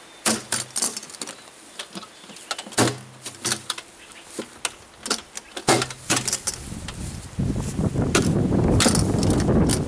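Steel ammo can being banged repeatedly against grassy ground: a string of sharp, irregular knocks with a metal rattle from the lid latch and handle, some leaving a short low ring from the box. About seven seconds in, a loud rough rumbling noise sets in and continues.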